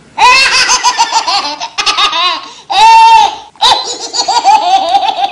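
A group of men laughing loudly and heartily at close range, with the loudest burst about three seconds in.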